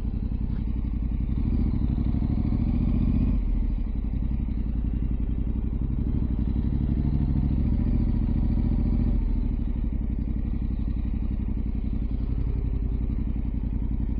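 Motorcycle engine running steadily at low speed, growing louder twice: once from about a second and a half to three and a half seconds in, and again from about six and a half to nine seconds in.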